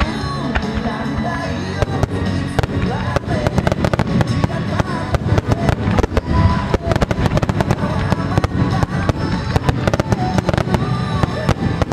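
A dense barrage of aerial firework shells bursting: a rapid, overlapping run of sharp bangs that grows thicker after about two seconds, with music playing underneath.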